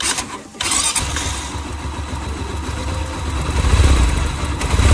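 Motorcycle engine starting about half a second in and then running with a steady low rumble, a little louder in the second half. It is running with a newly fitted timing chain and a reset tensioner, and it is meant to sound quieter than the old chain's rattle.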